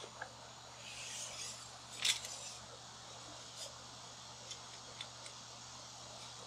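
Steel tape measure being pulled out and held along a cord: a soft rustle about a second in, a sharp click about two seconds in, then a few faint ticks.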